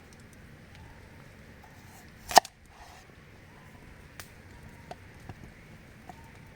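A single sharp knock, like a chop, about two and a half seconds in, over a steady hiss with a few faint ticks.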